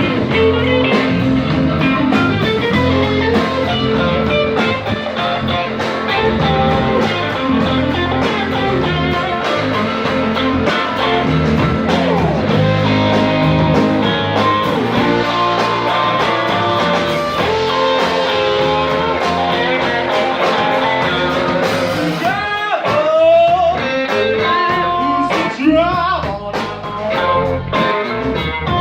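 Blues-rock band playing live, led by guitar. Sharply bending notes stand out in the last several seconds.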